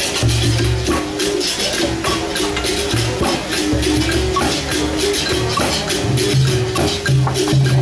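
Capoeira bateria playing a steady rhythm: berimbaus with caxixi shakers rattling, a pandeiro and an atabaque drum beating low strokes.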